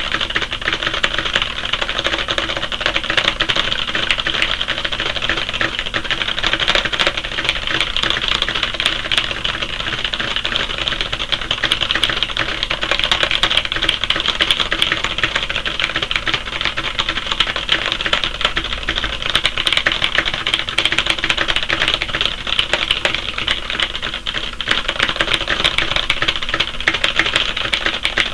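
Very fast touch typing on a full-size computer keyboard: a dense, continuous clatter of keystrokes at over 100 words per minute.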